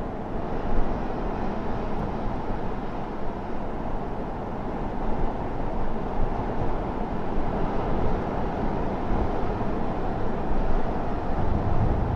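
Steady, low rushing noise without a clear pitch.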